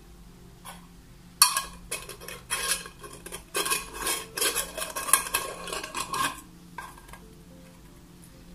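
Metal screw-top lid being put on a glass jar and twisted shut: a run of short, sharp scraping and clinking strokes of metal on glass for about five seconds, then it stops.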